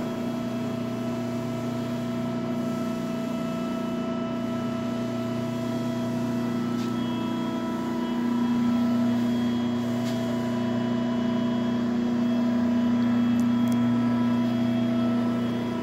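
Cincinnati 175-ton ProForm CNC hydraulic press brake's electric motor and hydraulic pump running with the ram at rest: a steady hum with several fixed tones, getting a little louder about halfway through.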